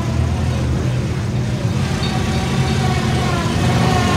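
Engine of a lifted mud truck on tall tractor tires running steadily as it drives slowly past, close by.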